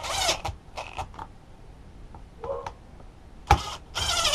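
Cordless drill-driver running in several short bursts, the motor pitch bending up and down, as it drives screws into the chainsaw's plastic starter cover, one screw not going in. A sharp click about three and a half seconds in.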